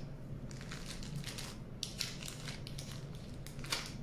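Plastic zip-top bag crinkling in irregular bursts as a hand presses and smooths it.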